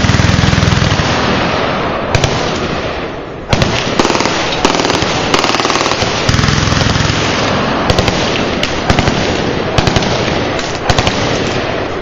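Many machine guns firing downrange at once: a continuous overlapping barrage of rapid fire with louder single shots standing out. It dips briefly about three seconds in, then comes back at full strength.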